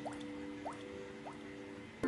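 Three soft, short water-drop 'bloop' sound effects, each a quick upward-gliding blip, about one every 0.6 seconds, over a faint held music chord.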